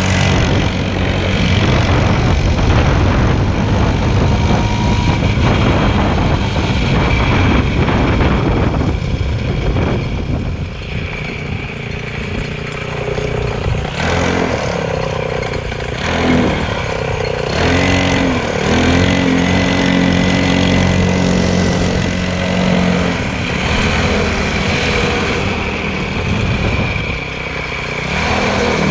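Motorcycle engine running and revving, its pitch rising and falling, holding steady for a few seconds past the middle.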